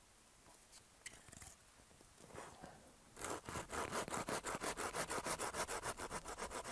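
Small hand saw cutting a shallow marking groove into a short wooden log, in rapid short even strokes that start about three seconds in. Before that, a few faint knocks of the wood being handled.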